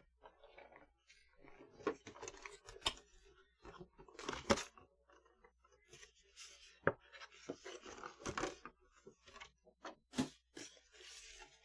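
Cardboard packaging being handled: a box flap and inner tray sliding and rustling in short spells, with a few sharp taps and knocks.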